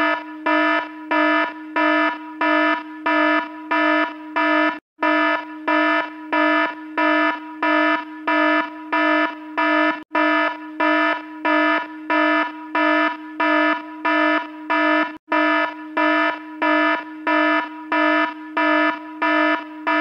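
Electronic alarm sounding a low buzzing tone in even pulses, about two a second, with a brief break about every five seconds.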